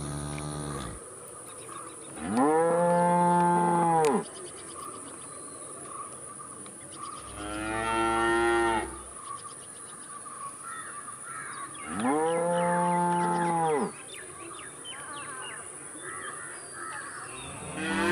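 Cattle mooing: three long moos of about two seconds each, rising then falling in pitch, spaced several seconds apart. A fourth moo starts near the end.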